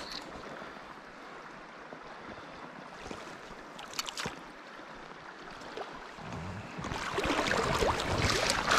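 Flowing river water, with a few sharp clicks about three to four seconds in. From about seven seconds the water grows louder with splashing as a hooked trout is drawn in to the net.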